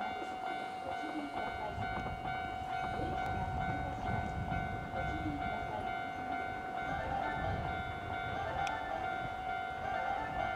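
Japanese level-crossing alarm ringing steadily while a Keihan 3000-series electric train approaches round a curve, its wheel and motor rumble growing from about three seconds in.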